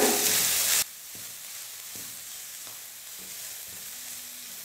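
Shredded cabbage and grated carrot sautéing in oil in a stainless steel kadai, stirred with a spatula that scrapes lightly against the pan. A louder sizzling hiss for about the first second drops off suddenly to a softer steady sizzle with faint scrapes.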